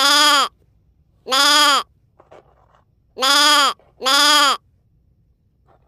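Four short bleats, each about half a second long, with the pitch rising and then falling. The same call is repeated with the same shape each time.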